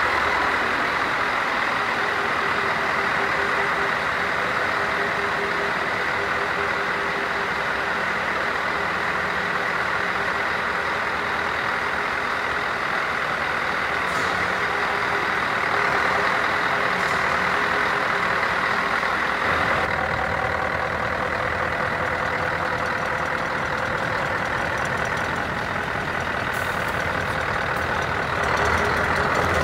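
Scania R164 480 truck's diesel V8 idling steadily, first inside an enclosed hall, then outdoors, where it runs on as the truck pulls away near the end.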